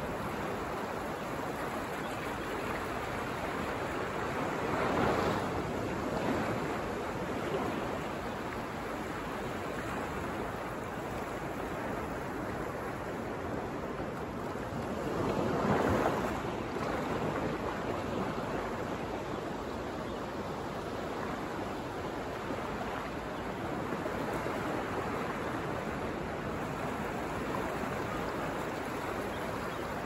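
Ocean surf breaking on a rocky, sandy shore: a steady rush of waves with two louder crashes, about five seconds in and again around sixteen seconds.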